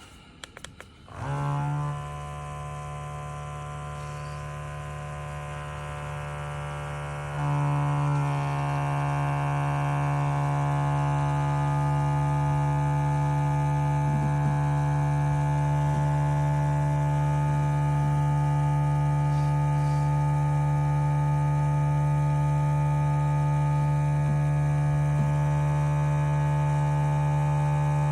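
Small electric pump in a portable espresso machine buzzing steadily. It starts about a second in and steps up louder about seven seconds in.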